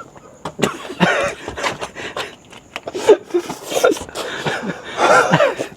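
Eating sounds: chewing, mouth noises and sharp clicks of utensils, with short muffled voice sounds in between.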